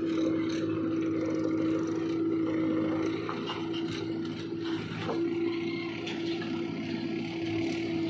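Diesel engines of a JCB 3DX backhoe loader and a Mahindra tractor running steadily, a droning engine sound with a steady whining tone over it that breaks off briefly about five seconds in. Soil from the backhoe bucket falls into the tractor's trolley around the middle.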